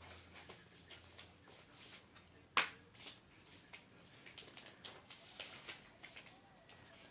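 Hands working a cable loose: faint, scattered ticks and rustles of the wire and its plastic, with one sharper click about two and a half seconds in.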